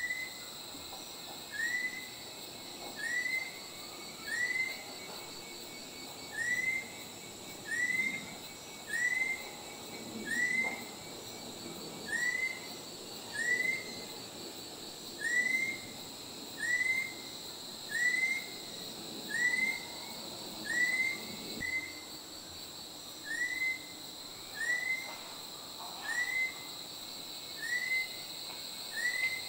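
Chestnut-collared (rufous-collared) kingfisher calling: a long series of short, rising whistled notes, about one a second, with a few brief pauses. A steady high insect drone runs behind it.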